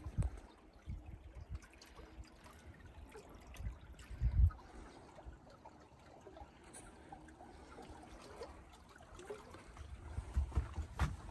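Small water sounds, trickling and lapping against the metal boat hull, under a few low thumps, the loudest about four seconds in and several more near the end.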